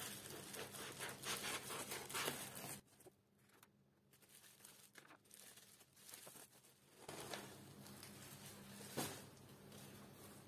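Bubble wrap crinkling and rustling as it is pulled off a potted plant. It goes quiet from about 3 to 7 seconds in, then more rustling follows with one sharper crackle near the end.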